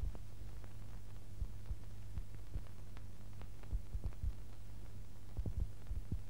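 Steady low hum with faint, irregular clicks and pops: background noise of an old film soundtrack.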